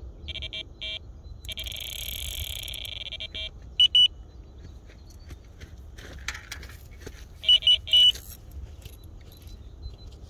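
Carp bite alarm sounding a take: a few short electronic beeps, then an unbroken tone for about two seconds as line runs through it. Louder sharp beeps follow about four seconds in and again near eight seconds, with the hanger dropping back on the line as a fish picks up the bait.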